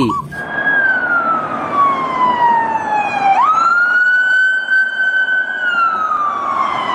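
Electronic police siren wailing. Its pitch falls slowly for about three seconds, jumps back up, holds high for a couple of seconds, then falls slowly again, over a steady hiss.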